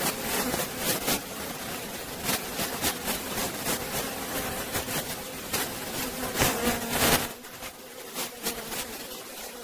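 Honeybees buzzing in a steady hum over an opened hive box. Scattered knocks come from the wooden comb frames being handled as bees are shaken off them. The louder part ends about seven seconds in.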